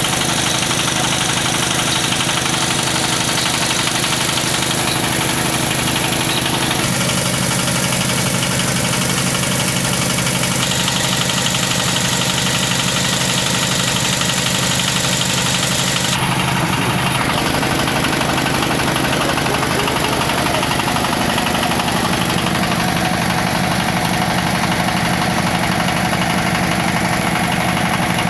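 Engine of a borehole well-drilling machine running steadily at a constant speed, its tone changing slightly twice.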